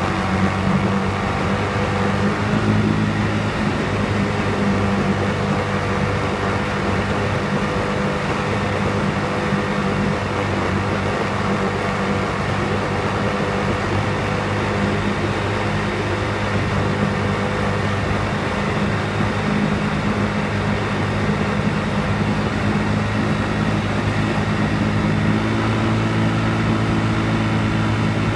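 ATV engine running steadily while riding on a paved road, with road noise; the engine note shifts slightly near the end.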